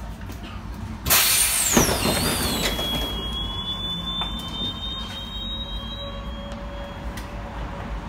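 Tram doors opening at a stop: a sudden loud hiss about a second in, with a high squeal that slides down in pitch and then holds steady for a few seconds, over the steady low hum of the stopped tram.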